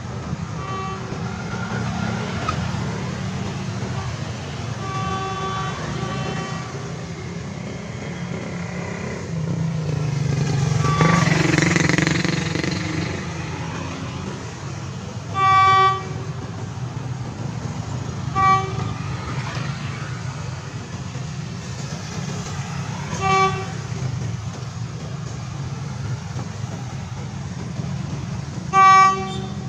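Steady city road traffic, cars and motorcycles running past, with one vehicle passing loudly about a third of the way in. A vehicle horn gives several short single-pitched toots, the loudest about halfway through and again near the end.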